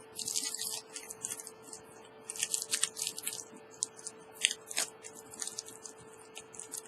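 Small dry clicks and scratchy scrapes of a precision screwdriver turning a tiny screw into a phone's motherboard, coming in irregular clusters.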